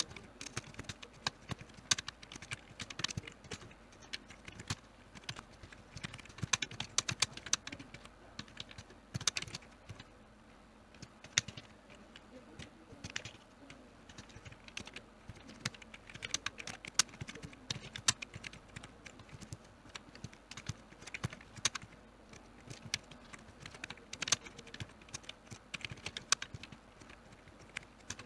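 Typing on a computer keyboard: quick, irregular key clicks in bursts, with short pauses between runs.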